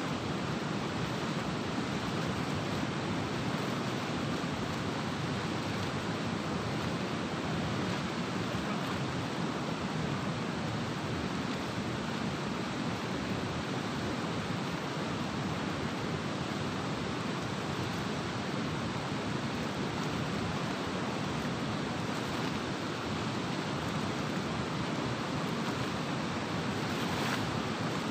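Steady rushing of river water pouring through the open sluice gates of a barrage and churning downstream, an even noise with no breaks.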